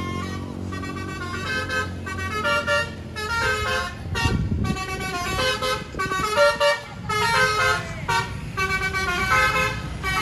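Bus telolet basuri horn, a multi-tone musical air horn, playing a quick tune of short notes over the bus engine running. A louder low rumble comes about four seconds in.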